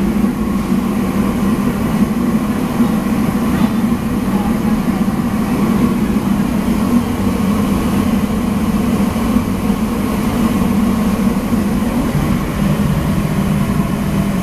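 Loud, steady mechanical drone of large-kitchen equipment, strongest in a low hum that stays even throughout.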